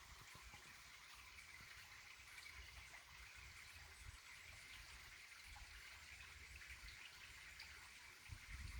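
Faint running water of a stream, an even hiss, with an uneven low rumble of wind on the microphone.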